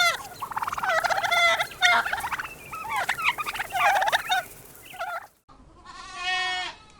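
Domestic turkey gobbling in several rapid, warbling bursts. About five and a half seconds in, after a brief silence, a goat gives one long bleat.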